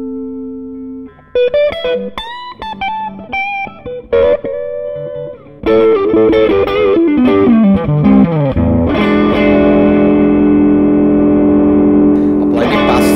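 Electric guitar played through an SCW Audio Blackstone Overdrive, a Bluesbreaker-style overdrive pedal, on its lower, fatter voicing with extra mids and lows. A held note fades out, then come single-note blues licks with bends. About halfway in, a louder descending run leads into sustained overdriven chords.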